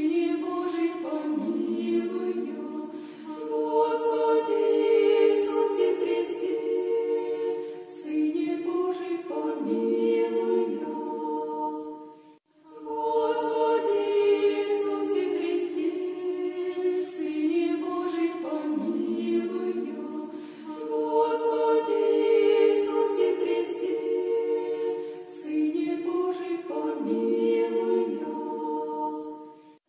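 Choir singing an Orthodox prayer chant a cappella in slow, sustained phrases, with a brief breath break about twelve seconds in.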